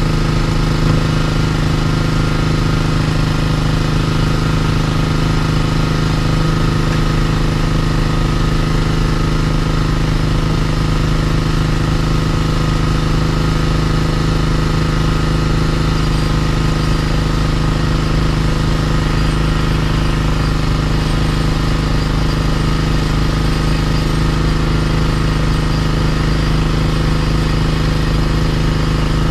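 An engine running steadily at a constant speed, its pitch and loudness unchanged throughout.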